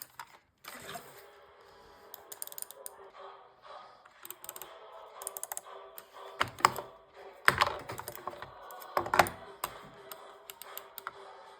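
Small plastic clicks and taps throughout, with three louder knocks about 6.5, 7.5 and 9 seconds in, over a faint steady hum.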